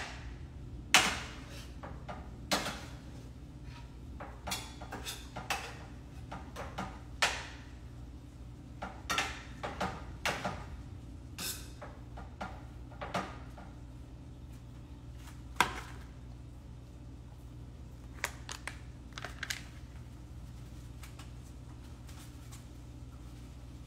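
Cooking utensil clinking, tapping and scraping against a pan on the stovetop in irregular sharp knocks, which stop about twenty seconds in. A steady low hum runs underneath.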